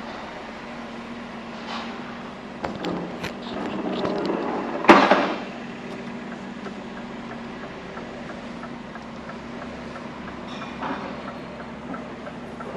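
Heavy goods vehicle's diesel engine running steadily, heard from inside the cab, with a few clicks and knocks and a loud short burst of noise about five seconds in.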